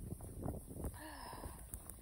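A person panting, out of breath from wading through deep snow, with a short voiced gasp about a second in, over uneven crunching and rustling.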